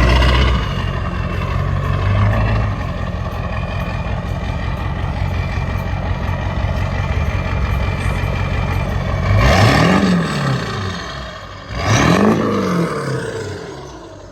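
A vehicle's engine run hard, with a steady rumble and then two hard revs in the last few seconds, each rising and falling in pitch.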